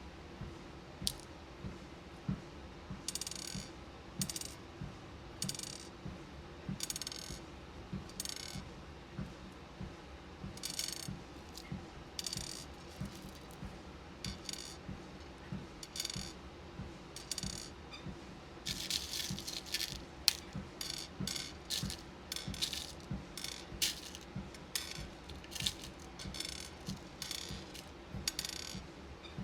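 Small beads clicking and rattling in handfuls as they are sorted, with bursts of clatter, busiest in the second half. Under them runs the steady hum of a walking pad treadmill and the even thud of footsteps on its belt.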